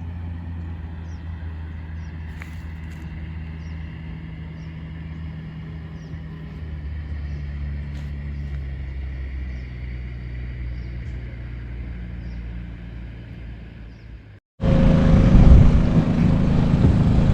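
An engine running steadily with a low hum, its pitch shifting slightly now and then. About fourteen seconds in it cuts off and gives way to a louder stretch of rushing noise over a low engine hum.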